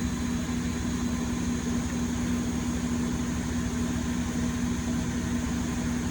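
Steady hum of a running CNC milling machine, with one constant low tone and a faint constant high whine.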